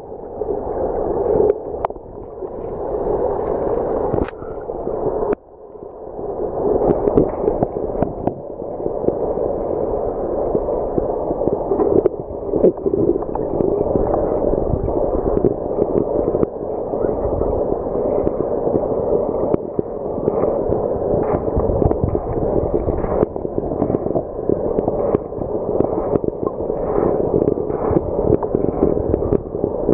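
Muffled rushing and gurgling of moving water heard through an underwater camera, a steady low noise with scattered knocks and clicks.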